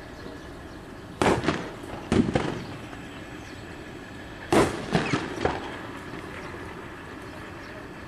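A run of sharp cracks or bangs, single ones about a second and two seconds in and a quick cluster of three about halfway through, each dying away within a fraction of a second, over a steady background rumble.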